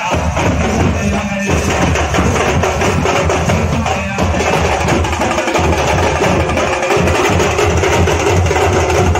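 A troupe of large barrel drums (dhol) beaten with sticks, playing a loud, dense, continuous drum rhythm with deep booming strokes and rapid sharp stick hits.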